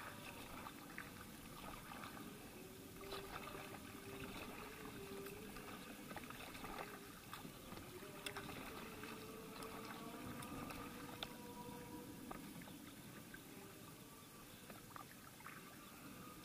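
Double-bladed kayak paddle dipping into calm sea water with soft splashes and drips, faint and steady, with small scattered ticks.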